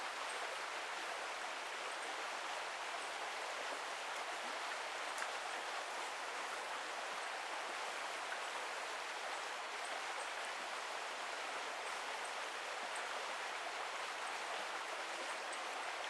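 Small forest brook running over shallow riffles and rapids: a steady, even rush of water.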